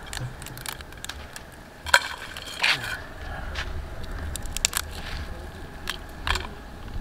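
Mud crab shell cracking and crunching as it is broken apart by hand over a metal pan, a run of irregular sharp cracks, the loudest about two seconds in.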